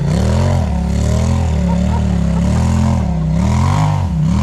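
Side-by-side UTV engine revving up and down while crawling, its pitch rising and falling every second or so.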